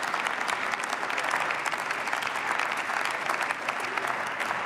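Steady applause from many members of parliament clapping, a dense patter of hands.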